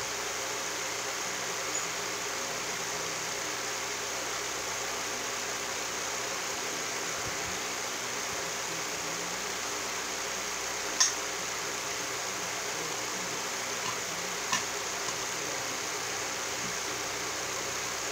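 Steady hiss, broken by two short clicks from a bearing puller being handled against a ceiling fan's cover plate while its bearing is being removed; the louder click comes about two-thirds of the way through, the other a few seconds later.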